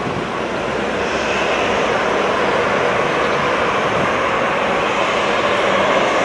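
Airliner engines running with a steady roar that slowly grows louder.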